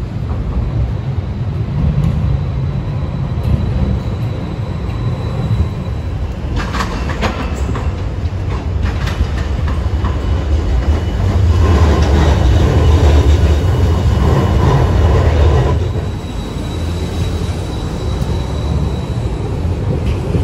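Low-floor articulated trams running on street rails: a steady low rumble of motors and wheels. A run of sharp clicks over the rail joints comes about seven to nine seconds in. The rumble grows louder for a few seconds from about twelve seconds in as a tram runs close by.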